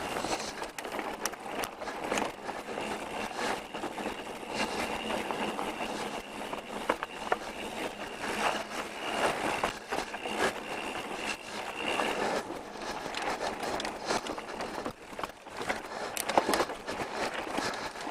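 Pivot Switchblade mountain bike riding down a dirt trail: tyre rolling noise with frequent rattles and knocks from the bike over rough ground. A thin, steady high tone runs along with it and stops about two-thirds of the way through.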